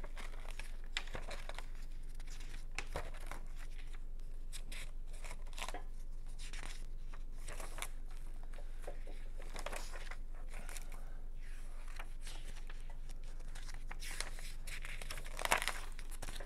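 Paper pages rustling and being turned in a ring binder, in scattered short rustles with a louder flurry near the end, over a faint steady low hum.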